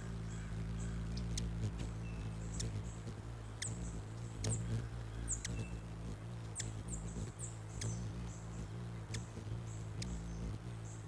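Hummingbirds giving short, high chip notes, scattered irregularly and clustered around the middle, over a steady low hum.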